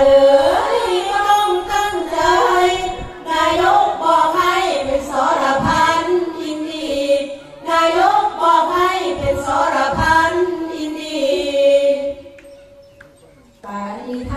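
Women singing sarabhanya, Thai Buddhist chanted verse, in long phrases that slide in pitch, with short breaks between phrases and a longer pause of about a second and a half near the end.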